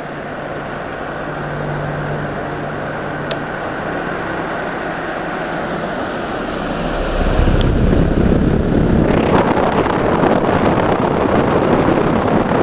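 Three-speed pedestal fan running, a steady rush of air with a faint motor hum, its airflow buffeting the microphone. About seven seconds in it turns clearly louder and rougher.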